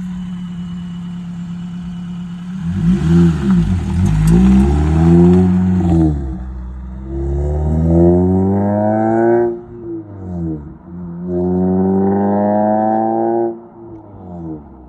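Toyota Celica's four-cylinder engine idling, then revved several times through an aftermarket stainless steel cat-back exhaust. The pitch climbs and falls with each rev, with two longer climbs that drop off sharply.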